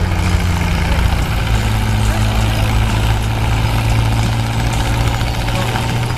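Heavy engine running steadily at a constant pitch.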